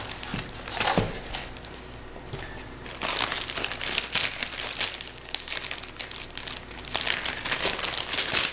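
Packaging crinkling and rustling as camcorder accessories are handled and unwrapped, in three spells: briefly about a second in, from about three to five seconds, and again near the end.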